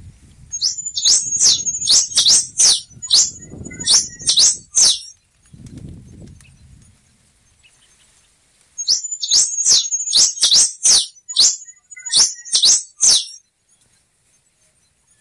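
Black-and-rufous warbling finch (quem-te-vestiu) singing. It gives two phrases of quick, high, down-slurred notes over a thin high tone, each about four seconds long, with a pause of about four seconds between them.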